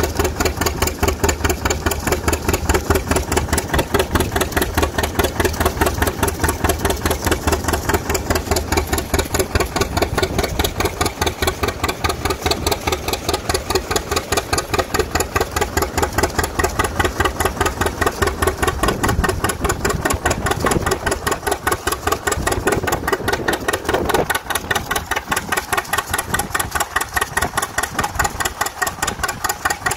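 John Deere A's two-cylinder engine running steadily with an even popping exhaust beat, under load from a belt-driven Baker fan.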